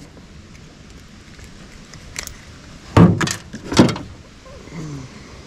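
A few sharp knocks and clatters from handling in a jon boat; the two loudest come less than a second apart about three seconds in.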